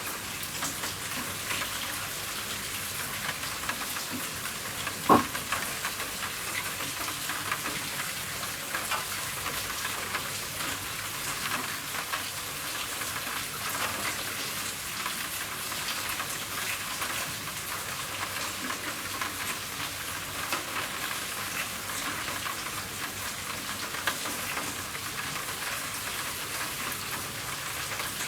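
Rain falling on a roof: a steady hiss of many small drop ticks, with one louder sharp tap about five seconds in and a smaller one near the end.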